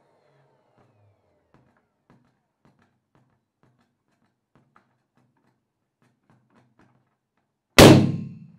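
Inflated latex balloon bursting with a single loud, sharp pop near the end, after a few faint ticks of a finger pressing on the taut rubber.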